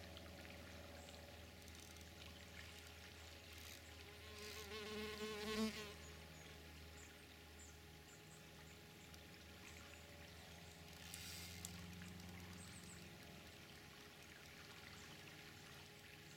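Quiet background with a steady low hum. About four seconds in, an insect's buzz with a wavering pitch swells for a couple of seconds and fades, with a shorter faint rustle a few seconds later.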